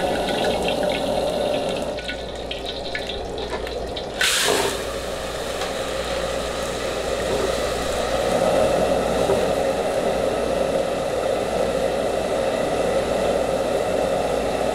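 A lidded wok of water boiling hard on a gas burner, with steam escaping around the lid: a steady rushing noise. A short, loud whoosh comes about four seconds in.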